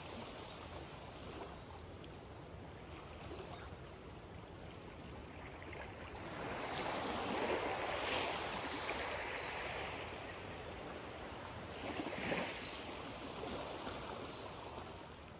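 Small waves lapping up onto a sandy shore in calm water, a soft wash that swells and eases, strongest about halfway through and again briefly a few seconds later.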